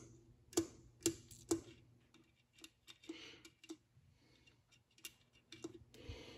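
Oil can with a flexible spout clicking as oil is pumped into a roller cam follower's bearing. Three sharp clicks come about half a second apart in the first couple of seconds, followed by fainter scattered ticks.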